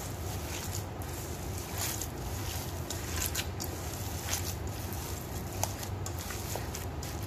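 A hand kneading and squeezing raw minced meat mixed with chopped vegetables in a stainless steel bowl: soft wet squishing at an irregular pace. A steady low hum runs underneath.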